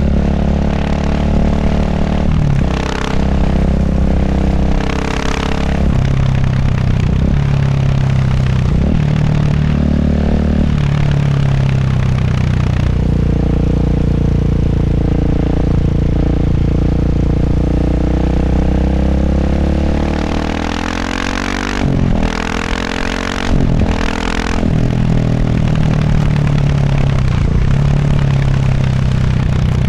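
KTM 690 SMC R's single-cylinder engine running through a Tekmo titanium racing exhaust and Arrow muffler. Its pitch climbs and drops again and again, with short breaks as between gear changes. A couple of sharp cracks come about two-thirds of the way through.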